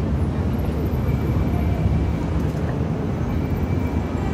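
Outdoor city street ambience: a steady low rumble, heavy in the bass, with no clear voices or distinct events.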